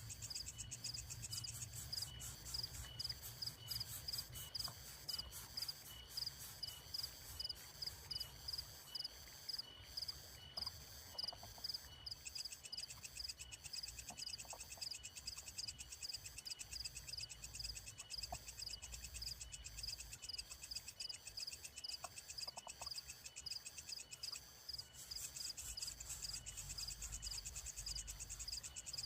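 Faint, steady chorus of calling insects, with evenly repeating high-pitched chirps a few times a second and a fast, buzzy trill higher up that drops out for a stretch in the middle.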